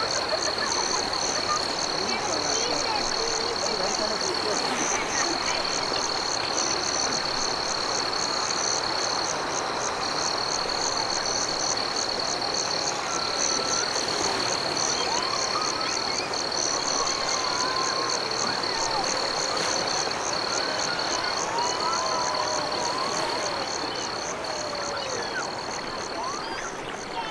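Steady high-pitched chorus of calling animals: a continuous shrill tone with a fast pulsing trill just above it, over an even background hiss.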